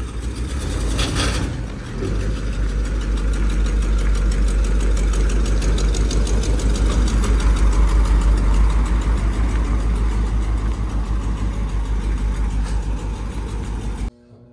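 A vehicle engine idling with a steady, rapid pulsing rumble. There is a brief hissing burst about a second in, and the sound cuts off suddenly near the end.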